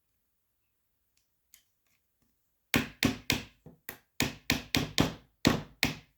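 A quick series of about eleven sharp taps, roughly three a second, starting about three seconds in: a tool tapping on parts of a paintball marker's receiver, knocking them into place during reassembly.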